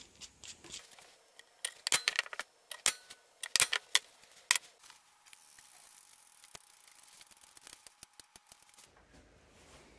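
A hollow gasket punch being fitted into its handle and driven through a paper template on a wooden board: a run of sharp clicks and knocks, bunched between about one and a half and four and a half seconds in, then only a few faint ticks.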